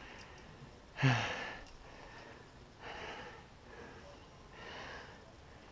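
A climber breathing hard after a strenuous move. There is a voiced sigh about a second in, falling in pitch, then about three breathy exhales roughly a second apart.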